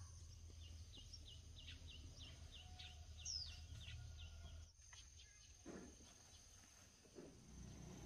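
Faint countryside ambience: a small bird repeating a short, high, falling chirp about three times a second, with one longer falling call in the middle, over a steady high insect drone. The chirping stops abruptly about halfway through, leaving the quieter drone.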